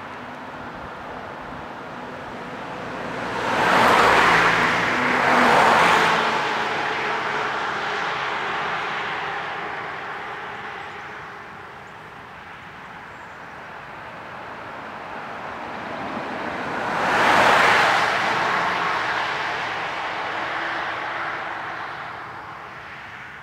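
Cars passing on a road. Two go by close together about four and six seconds in, and another about seventeen seconds in, each swelling and then fading away.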